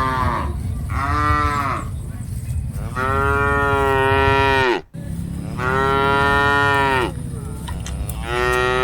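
Cattle mooing repeatedly: two short moos, then three longer drawn-out ones, each about a second and a half to two seconds. Sound drops out abruptly for a moment midway, over a steady low rumble.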